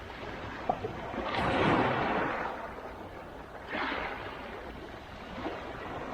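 Black Sea waves breaking on the shore and washing back: a broad surge about a second and a half in, a shorter one near four seconds, and another building near the end.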